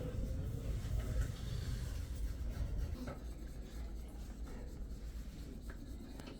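Soft rubbing and shuffling of hands, clothing and a padded treatment table as a patient is handled and positioned, over a low rumble that eases about halfway through.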